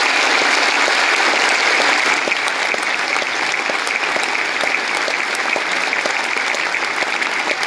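Large audience applauding, a dense and steady clapping that eases slightly after about two seconds.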